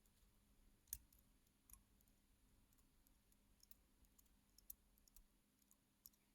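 Faint, sparse clicks of small parts and tools on a watch movement being handled during disassembly, the loudest about a second in, then several softer ones.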